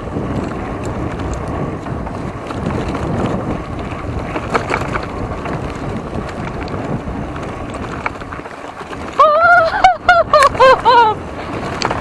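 Wind rushing over the microphone, with rumble and scattered rattles as a Giant Talon 3 hardtail mountain bike rides a dirt trail. About nine seconds in come several short, loud calls that rise and fall in pitch.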